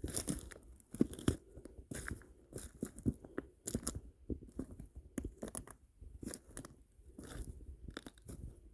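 Footsteps crunching over the dry stones and debris of a creek bed, an uneven step about every second.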